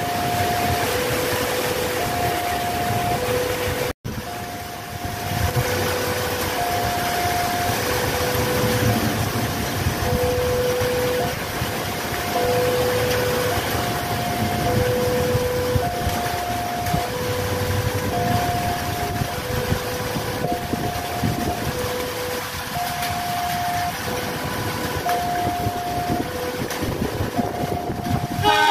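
Electronic two-tone warning alarm alternating a higher and a lower tone, each just under a second long. It is the kind used at railway level crossings to signal an approaching train, and it plays over a steady rush of background noise. The sound breaks off for an instant about four seconds in.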